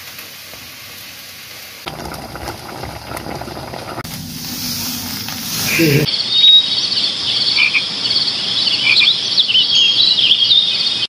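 Softer, shifting noise gives way about six seconds in to a loud outdoor chorus of calling animals. A steady, high, pulsing trill carries on with scattered chirps over it.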